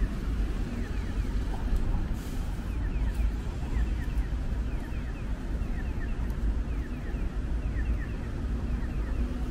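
Steady low rumble of city street traffic with wind on the microphone, and a run of short, high, falling chirps repeating a few times a second over it.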